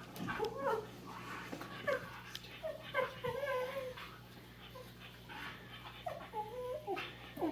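Rough Collie puppy giving a string of short whines and whimpers while play-fighting with a cat.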